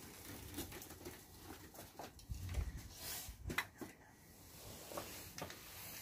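A hand-worked floor pump inflating a bicycle tyre: a few faint, irregular knocks and clicks from its strokes.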